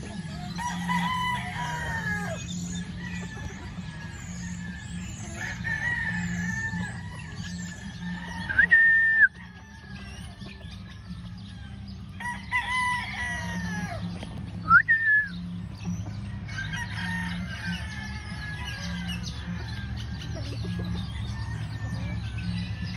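Gamefowl roosters crowing and pullets clucking, a series of pitched, drawn-out calls with two short, loudest ones about a third and two-thirds of the way through. A steady low hum runs underneath.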